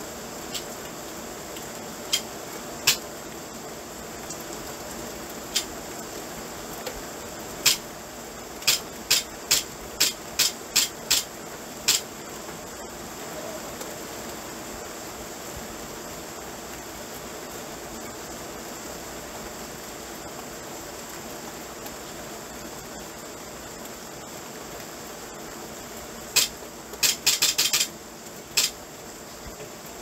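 Steady rain falling, with loud, sharp taps at irregular moments: a few scattered, a quick run of them about ten seconds in, and another tight cluster near the end.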